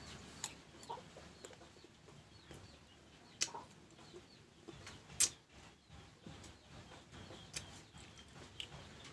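Crunching and chewing of raw green mango slices, with sharp crisp crunches, the loudest about a third of the way in and just past halfway. Chickens clucking in the background throughout.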